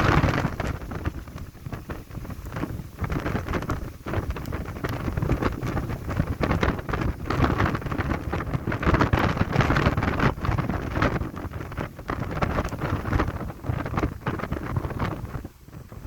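Strong gusty wind buffeting the microphone, surging and easing in uneven gusts, with a short lull near the end.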